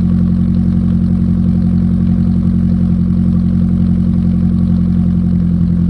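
Car engine idling steadily through a one-off loud aftermarket muffler built to a discontinued RS-R design, with its inner silencer fitted.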